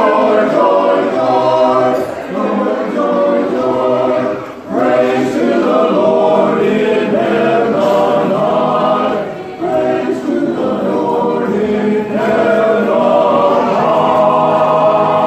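Men's barbershop chorus singing a cappella in close harmony: sustained chords broken by brief pauses between phrases.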